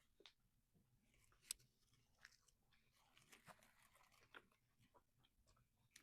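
Faint chewing with scattered small crunches as a chicken snack wrap in a tortilla is eaten; the sharpest crunch comes about a second and a half in.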